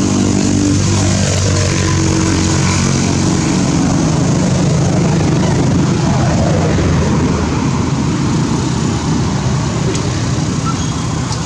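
A motor engine running steadily and loudly, with a low hum.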